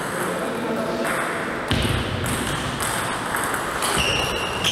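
Table tennis rally: the ball clicks sharply a few times off the rackets and table. A short high-pitched squeak sounds near the end.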